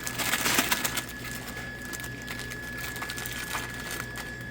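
Plastic snack bags crinkling as they are shaken down and slid into a vending machine tray, busiest in the first second, then lighter rustling and small clicks.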